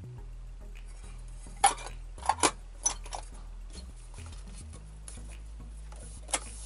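Five or so short metal clinks and knocks, spread out, from a rice cooker's metal inner pot being handled and knocked against the cooker's heating plate and body.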